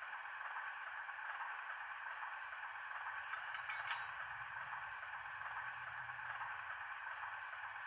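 A sound-fitted OO gauge Bachmann Class 03 diesel shunter model idling at a standstill: its DCC sound decoder plays a steady diesel engine idle through the model's small speaker.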